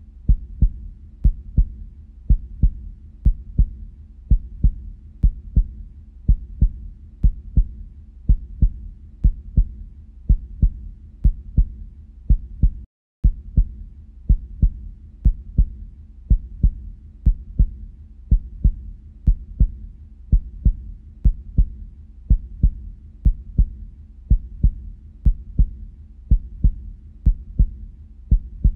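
Heartbeat sound, a steady double lub-dub thump repeating a little more than once a second, with a brief break about 13 seconds in.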